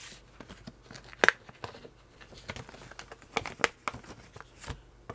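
Scissors snipping open a black plastic bag, with the bag crinkling as it is handled. Irregular sharp snips and rustles, the loudest about a second in and again past the middle.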